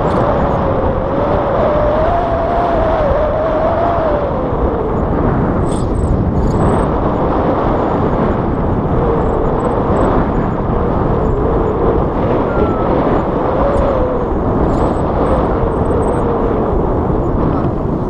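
Steady, heavy wind noise on the camera microphone from the airflow of a tandem paraglider in flight, with a faint, wavering whistle running through it.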